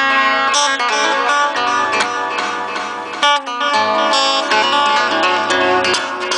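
Acoustic guitar being strummed in a steady rhythm, moving through changing chords.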